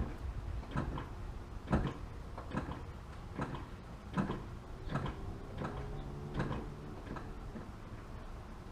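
Brake pedal being pumped on a Honda Civic, giving a regular series of short clicks and knocks a little more than one a second, to build pressure in the newly bled braided brake lines.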